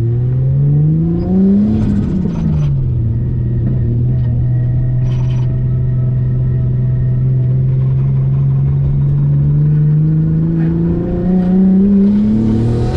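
Nissan A31 Cefiro's engine heard from inside the cabin, revving up under acceleration and dropping in pitch at a gear change about two seconds in. It then holds steady cruising revs that creep slowly upward, climbs faster again near the end and drops at another upshift.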